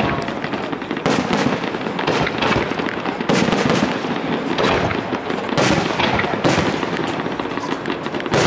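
Aerial firework shells bursting one after another, about one bang a second, over a steady din of smaller reports.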